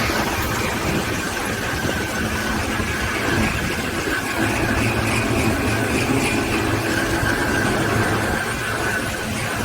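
Portable line boring and bore welding machine running steadily, a high whine over a low hum.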